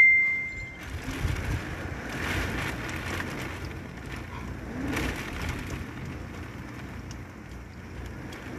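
Typhoon wind and rain: a steady rushing noise that swells in gusts about two and five seconds in. A high ringing tone fades out during the first second.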